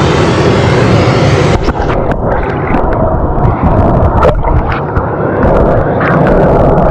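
Loud steady rush of water pouring through the dam outflow, mixed with wind buffeting the microphone. About a second and a half in the high hiss drops away, leaving low rumbling gusts with scattered knocks.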